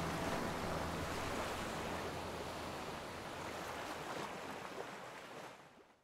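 Ocean surf breaking offshore, a steady rushing wash of waves that fades away over the last second.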